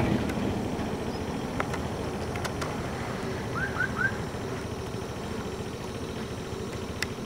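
Steady low outdoor rumble with a few faint clicks, and three quick rising chirps in a row a little past halfway.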